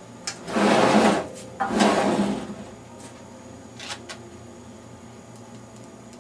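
Handling noise from reassembling a metal Avid VENUE FOH rack: two short noisy bursts about a second apart, each under a second long, with a few light clicks around them.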